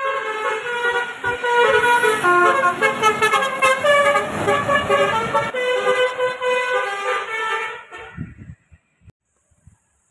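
Bus 'telolet' horn, a set of tuned air horns, playing a quick tune of changing notes for about eight seconds, then stopping.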